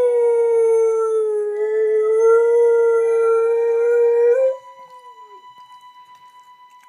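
Dog howling one long, loud note, its pitch held nearly level with a slight dip in the middle, in response to a recording of her own howling. The howl breaks off about four and a half seconds in and trails into a short falling whine.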